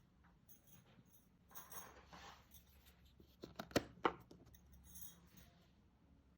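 Jigsaw puzzle pieces being handled on a table: a soft rustle of pieces sliding, then a few sharp clicks and taps, the loudest two close together a little after the middle.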